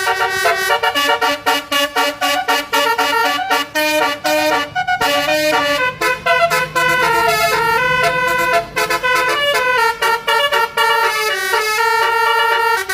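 Telolet basuri musical vehicle horn playing a quick melody of short stepped notes, with a few longer held notes in the middle.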